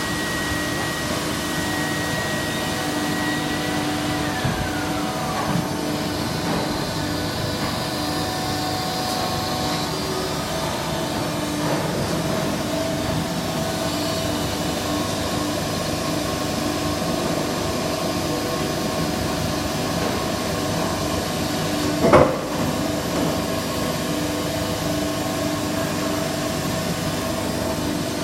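Automated injection-moulding feeding machine running steadily, a continuous mechanical hum with several steady tones. A high tone slides down in pitch about four seconds in, and a single sharp clank comes about 22 seconds in.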